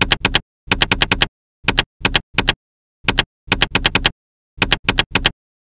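Typewriter keys striking as a sound effect: quick sharp clacks in short runs of two to five, with brief silent gaps between the runs.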